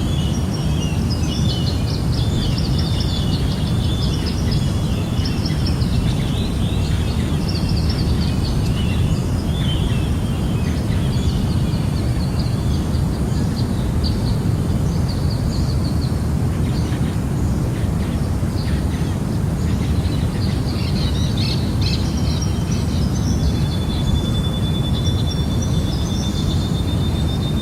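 Jungle ambience: many birds chirping and calling over a steady low rush. Near the end a single high, steady note is held for several seconds.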